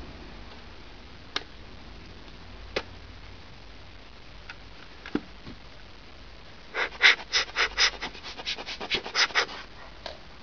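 Gloved hands handling a plastic Polaroid 600 instant camera: a few single clicks of the plastic body, then, a little past halfway, a quick run of scratchy rubbing and scraping sounds lasting about three seconds.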